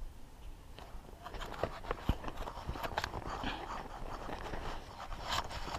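Close rustling, scraping and clicking with a few sharp knocks, starting about a second in: handling noise of a cyclist's clothing, gloves and gear rubbing against a chest-mounted action camera as he stows his phone and takes hold of the handlebar.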